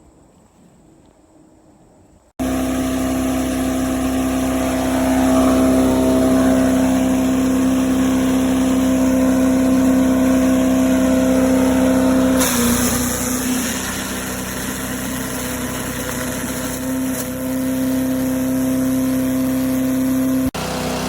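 SuperHandy 7 HP mini wood chipper-shredder's single-cylinder gas engine running steadily, cutting in abruptly a couple of seconds in. About twelve seconds in, its pitch dips briefly and a harsher hiss comes in, then it settles again.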